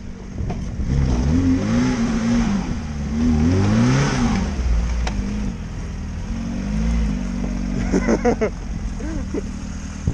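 Lada Niva engine revving up and down repeatedly under load off-road, then settling lower, with a brief clatter of knocks about eight seconds in.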